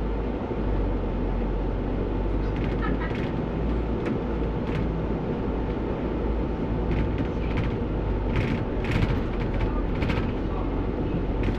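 Steady low rumble of a London bus driving in snow, heard from inside the driver's cab, with irregular clicks and rattles through it.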